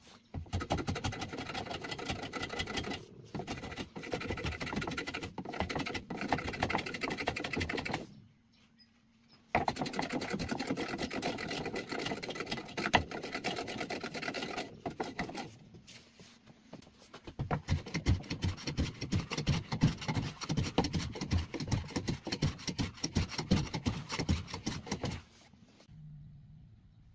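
Sanding along the edge of a wooden bench in three long stretches of rapid back-and-forth strokes, with short pauses between them.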